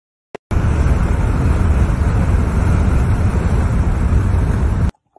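Rushing wind buffeting the microphone from a moving car, a dense low rumble of air and road noise. It starts abruptly about half a second in and cuts off suddenly just before the end.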